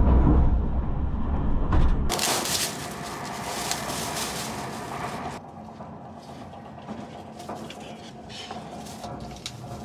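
A moving train's deep running rumble for about the first two seconds, which then cuts off. After that, crinkling and rustling of a plastic bag and a cloth wrapping as they are handled and untied from a boxed lunch. The rustling is loudest for a few seconds and then goes on more softly over a faint steady hum.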